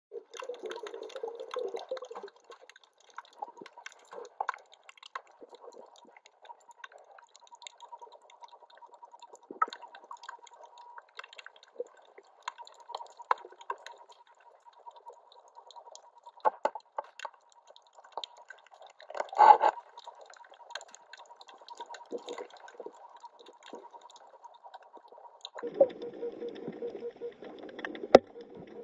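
Underwater sound picked up by a camera on a rocky reef: water moving and scattered clicks and knocks over a faint steady hum, with a louder rush of water about two-thirds of the way through and denser, louder water noise near the end.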